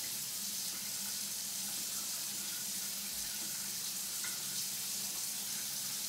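Kitchen faucet running steadily into the sink during hand washing, an even hiss of water, with a low steady hum underneath.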